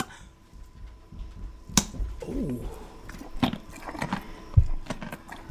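Horse chewing a carrot close to the microphone: scattered crunching clicks and knocks, the sharpest a little under two seconds in and a dull thump near the end.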